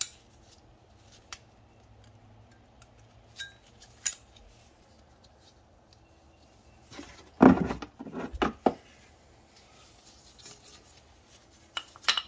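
Metal brake parts clinking and knocking as the rear brake caliper, pads and pad clips are handled, with scattered light clicks and a loud cluster of clanks about seven and a half seconds in.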